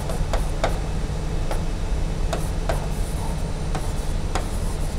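Pen tip tapping and clicking on an interactive touchscreen board during handwriting: irregular sharp clicks, one or two a second, over a steady low hum.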